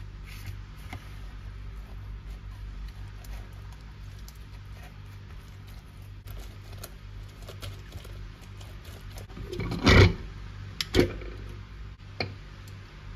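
Small clicks and taps of something being handled over a steady low hum, with a sharp louder knock about ten seconds in, another a second later, and a lighter one after that.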